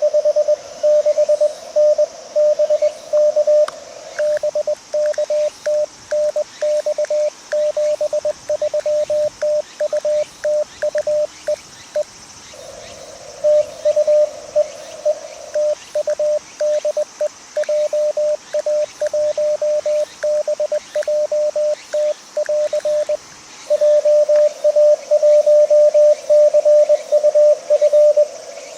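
Morse code (CW) from an amateur radio transceiver: a single tone of about 600 Hz keyed on and off in dots and dashes, over a steady receiver hiss. The keying breaks off briefly about halfway through.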